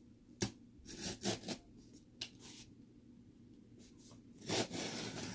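Utility knife blade slicing through packing tape on a cardboard box: a few short scratchy strokes, then a longer scraping cut near the end.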